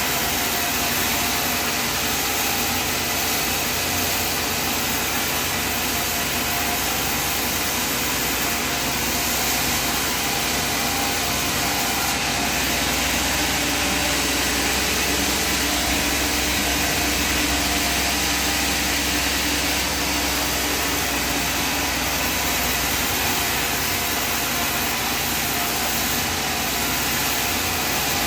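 Sawmill machinery running steadily: a dense, even machine noise with a faint hum, holding level throughout, with a slight change in the low hum around the middle.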